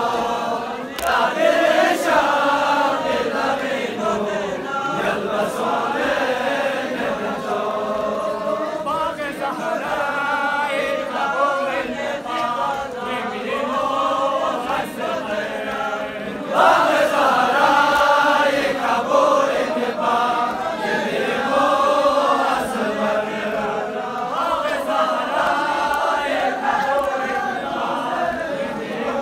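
Crowd of men chanting a noha, a Shia mourning lament, in unison. A louder phrase begins a little over halfway through.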